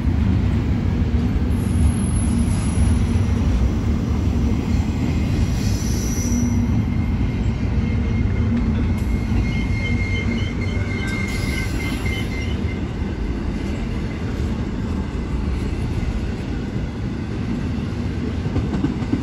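Empty BNSF intermodal well cars rolling past on a freight train, a steady low rumble of wheels on rail. A thin high wheel squeal rises out of it for a few seconds around the middle.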